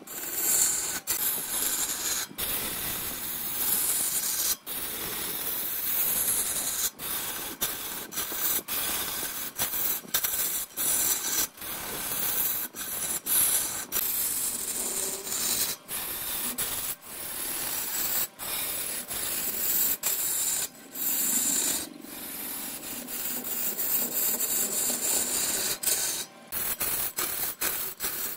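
Wood spinning on a lathe while a tool abrades it, giving a harsh, steady scraping hiss. It is broken by many brief, abrupt gaps every second or so.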